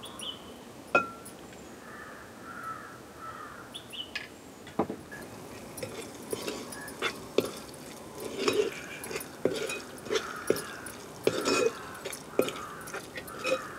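A metal spoon clinks sharply once against a small bowl. In the second half a metal ladle scrapes and knocks against the side of a metal cooking pot in a quick run of clinks as thick fish biryani masala is stirred.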